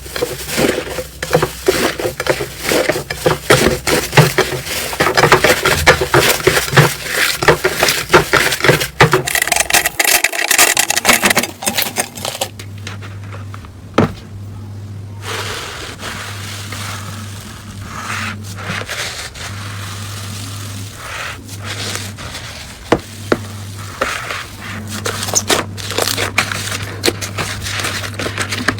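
Hands squishing and poking slime: a dense run of sticky clicks and crackles for about the first ten seconds, then a quieter stretch of sparser pops and squelches over a steady low hum.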